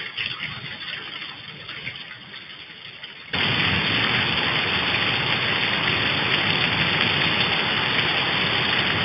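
Heavy rain pouring down onto a muddy yard and puddles, heard through a security camera's microphone: a steady, even hiss that gets suddenly louder about three seconds in.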